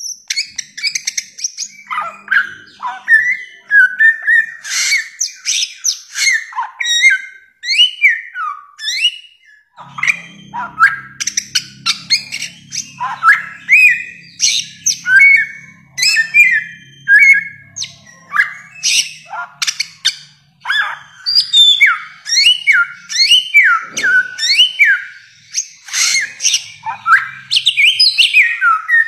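Bare-throated whistler (samyong) singing a fast, almost unbroken run of varied whistled notes and chirps, many sliding sharply up or down in pitch, with two short pauses about a third of the way in.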